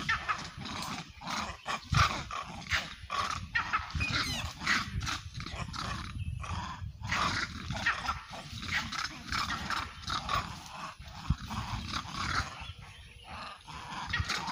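A troop of vervet monkeys calling: many short chattering calls and squeals in quick, irregular succession, over a low rumble.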